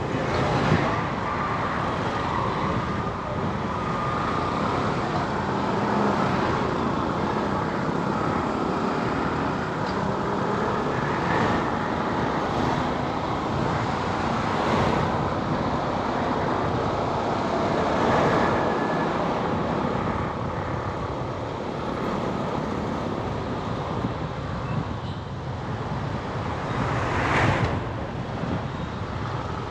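Steady road traffic noise of cars and buses on a busy road, with several vehicles swelling louder as they pass close by.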